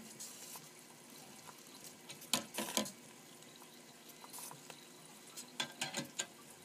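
Wilesco D5 toy steam engine's boiler simmering with a faint steady hiss as it builds pressure toward lifting its safety valve. A few sharp metallic clicks and taps come from hands on the engine, with a short louder hiss a little past the middle.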